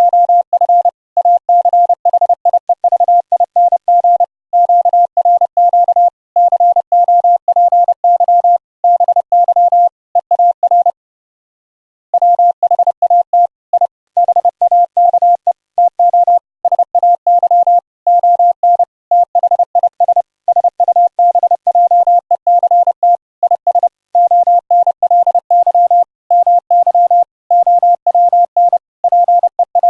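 Morse code (CW) audio tone sent over the internet through a WebRTC browser link: a single steady pitch keyed on and off in dots and dashes. The keying stops for about a second around eleven seconds in, then resumes.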